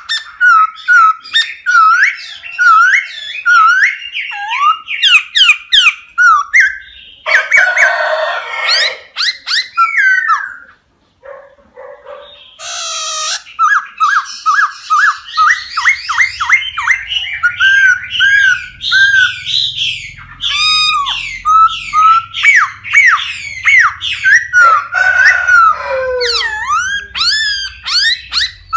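Laughingthrush singing: fast runs of loud, repeated whistled notes that glide in pitch, broken by harsh raspy calls, with a short pause near the middle.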